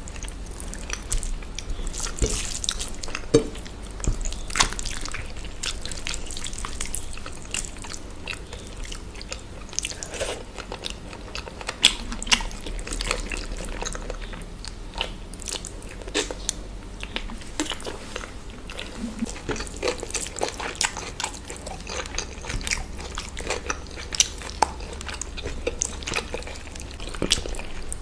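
Close-up eating sounds: a person chewing and biting into food, with many short irregular mouth clicks and smacks.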